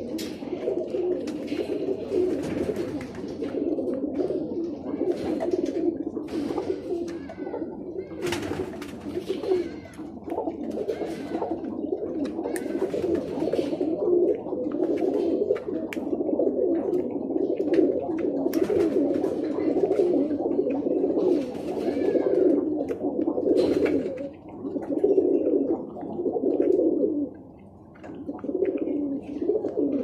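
Many Birmingham Roller pigeons cooing continuously, their coos overlapping into a steady chorus, with a short lull near the end.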